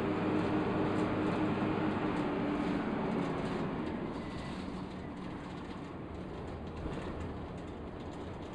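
Dennis Dart single-decker bus on the move, its engine and road noise heard from inside the saloon. A steady engine note is strong for the first three seconds, then eases off and the noise gets a little quieter.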